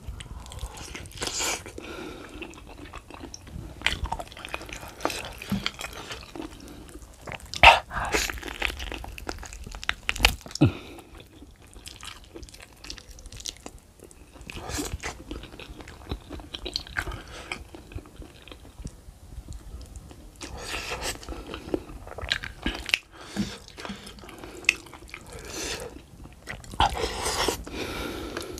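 A person chewing and biting into boiled beef foot with rice eaten by hand: wet, irregular chewing with crackly crunches, and sharp louder bites about 8 and 10 seconds in.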